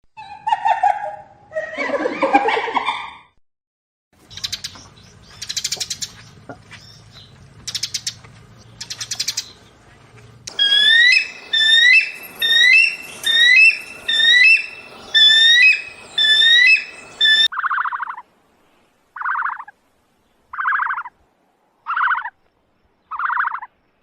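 A series of different bird calls, one clip after another. First come a few short calls, then scattered chirps over a low hum. Next is a fast run of repeated rising chirps lasting about seven seconds, and near the end five separate short calls about a second and a half apart.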